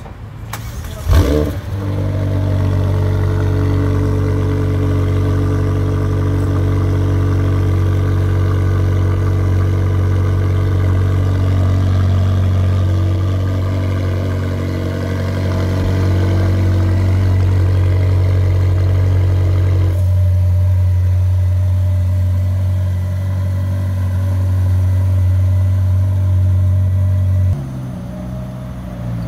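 McLaren 720S Spider's twin-turbo V8 starting up about a second in with a brief loud flare, then idling steadily. The level drops near the end.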